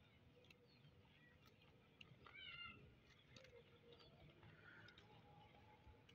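Near silence with a few faint clicks. About two seconds in, a goat gives one short, wavering bleat.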